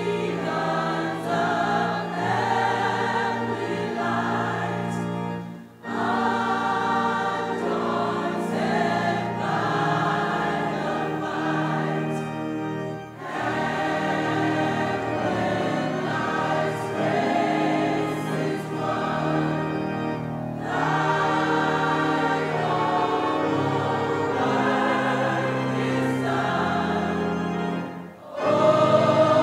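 A choir of women's voices singing a hymn with organ accompaniment, in long phrases separated by brief breaths roughly every seven seconds.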